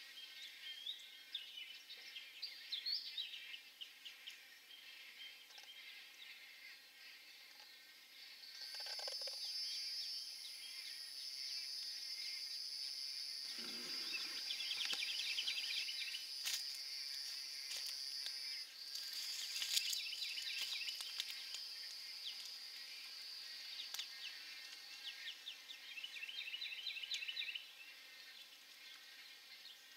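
Wood stork rookery: bursts of rapid chattering calls from the nestlings come several times, over a steady high-pitched insect drone that starts about a third of the way in and fades out near the end.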